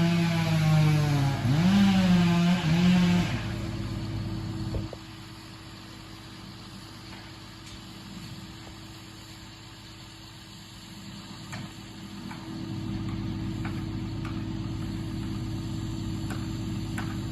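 An engine running hard, its pitch dipping and recovering as it takes load, then shutting off about three to four seconds in. After that comes a quieter steady hum with a few faint ticks.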